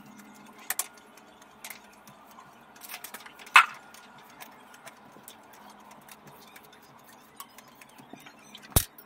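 Soft grass broom sweeping a hard floor, giving scattered light scratches and ticks. There is a sharp knock about three and a half seconds in and another near the end.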